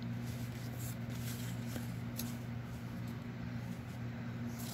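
Quiet handling of paper cut-outs on a journal page: a few faint taps and clicks as the pieces are set down and pressed, over a steady low hum.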